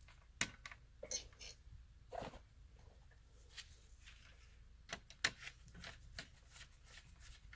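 Scattered sharp clicks and short scrapes from hand tools cutting and stripping the insulation off an electrical wire, the loudest click a little past five seconds in.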